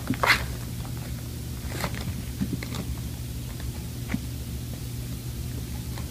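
Kittens scrabbling in an open cardboard box: a few short scratches and rustles of claws and paws on the cardboard, over a steady low hum.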